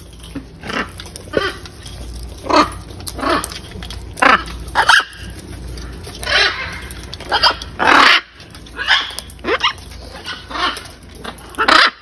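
Blue-and-yellow macaws calling: a series of short, loud squawks at irregular intervals, about a dozen in all.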